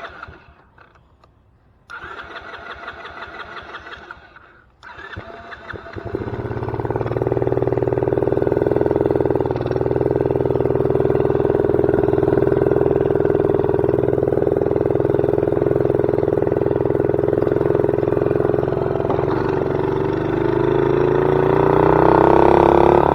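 ATV engine being cranked in two short tries with a pause between, then catching about six seconds in and running steadily, the revs rising near the end.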